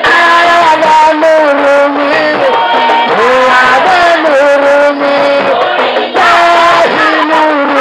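Women singing a Comorian maoulida devotional chant together, with long held notes that slide between pitches.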